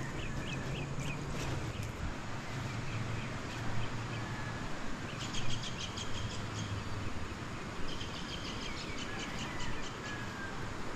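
Birds calling in the open, including two runs of rapid repeated high notes, one about five seconds in and another near eight seconds in, over a steady low hum.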